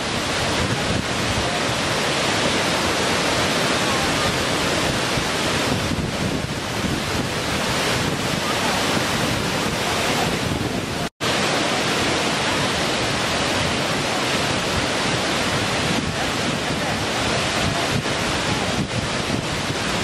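Waterfall cascading over rock ledges: a steady rush of falling water, cut off by a brief silent gap about eleven seconds in.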